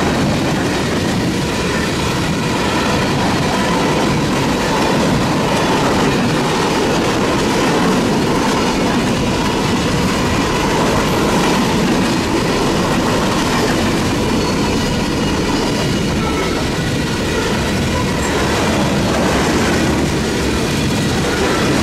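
Covered hopper and gondola cars of a freight train rolling steadily past, their steel wheels on the rails making a continuous loud noise.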